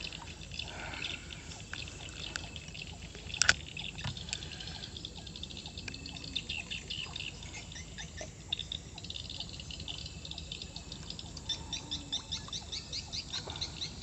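High-pitched animal chirping: a call repeated in quick even pulses, several a second, growing stronger in the second half. A sharp click sounds about three and a half seconds in.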